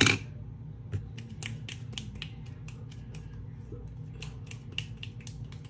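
A quick, uneven series of light clicks and taps from small hard objects being handled, opening with one louder click, over a low steady hum.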